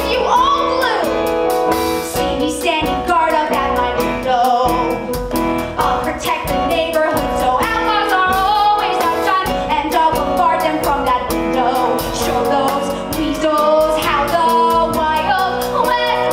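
A woman singing a musical-theatre song into a microphone, with instrumental accompaniment and a regular beat.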